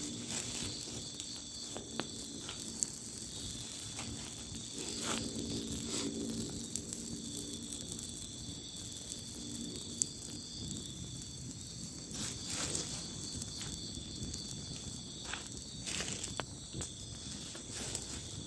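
Night chorus of crickets and other insects, a steady high-pitched trilling, with scattered sharp clicks throughout.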